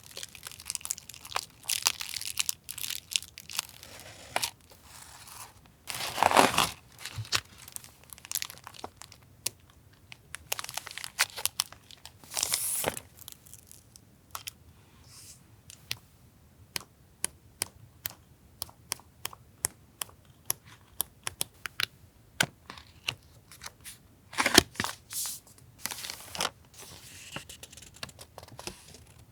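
Stationery and its packaging handled close up: paper and wrappers crinkling and rustling, with many small taps and clicks. Longer, louder crinkles come about six, twelve and twenty-four seconds in.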